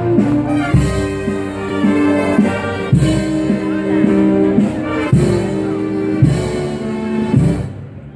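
Brass band playing a slow processional march for a Good Friday procession: held brass notes over heavy drum strokes every second or two.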